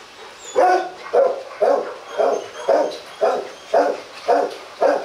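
Rottweiler barking in a steady run, about two barks a second, nine barks in all starting about half a second in.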